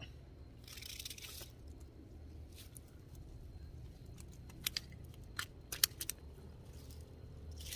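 Handling noises as a shrimp net is worked by hand: a brief rustle about a second in and again near the end, and a handful of sharp clicks a little past the middle, over a low steady rumble.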